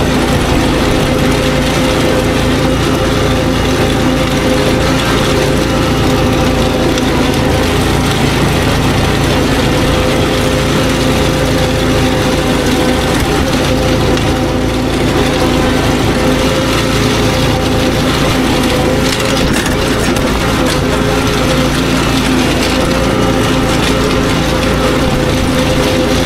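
Engine of a ride-on lawn machine running steadily at working speed while its front-mounted dethatcher rakes dead grass and thatch out of the lawn, a constant engine hum under a scratchy, crackling noise.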